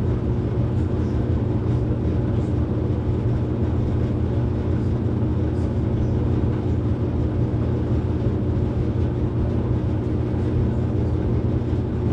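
A steady low mechanical hum, holding one constant pitch with no change in level.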